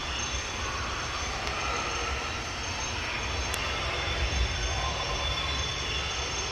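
Steady rushing noise of water pouring into an alligator pool, with a low rumble and a faint high steady whine over it.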